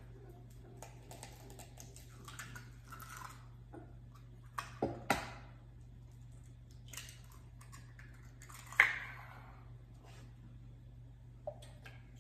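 Eggs being cracked and their shells pulled apart over a small glass bowl: scattered soft cracks and taps, a few knocks about five seconds in and one sharp knock about nine seconds in, over a low steady hum.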